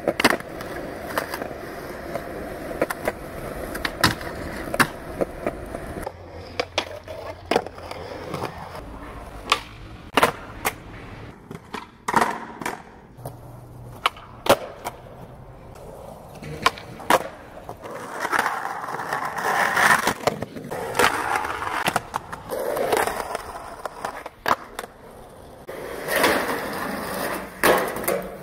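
Skateboard wheels rolling on concrete, broken again and again by the sharp pop of the board's tail and the clack of landings as the skater does flip tricks.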